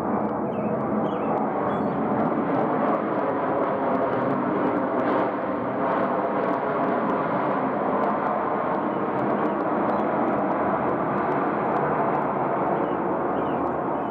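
Steady jet engine noise from a Boeing 737-900ER with CFM56 engines rolling out on the runway after landing, its spoilers raised. The noise eases slightly near the end.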